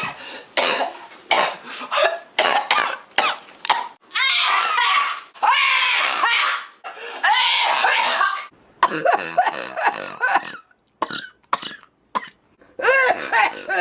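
A woman coughing over and over in short hacking fits, with throaty, burp-like sounds mixed in.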